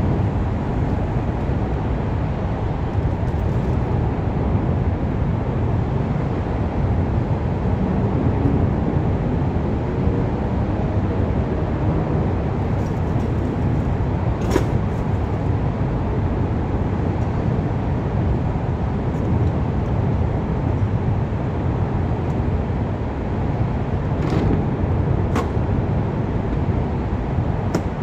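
Steady rumble of passing road traffic, with a few faint clinks about halfway through and near the end.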